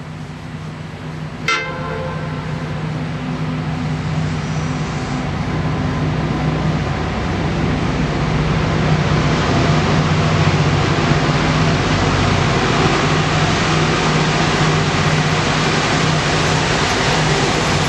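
Diesel-electric locomotives of a coal train (NSW 82 class) working upgrade through a rock tunnel, their engines drumming steadily and growing louder as they approach the tunnel mouth. A brief sharp sound is heard about one and a half seconds in.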